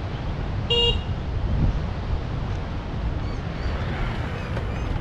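A short, high, horn-like beep, like a quick toot of a vehicle horn, about a second in, over a steady low rumble of wind on the microphone. Faint high chirps come in near the end.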